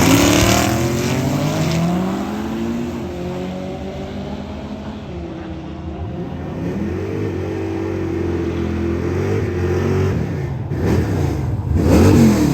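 Drag-race car engines revving, their pitch rising and falling. The revving is loudest at the start and again near the end, with steadier running between.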